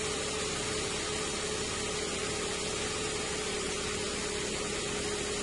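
A steady mechanical hum and hiss with one constant mid-pitched tone.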